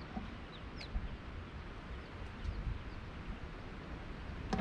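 Wind rumbling on the microphone, with birds calling over it in short, high, falling chirps and a sharp click near the end.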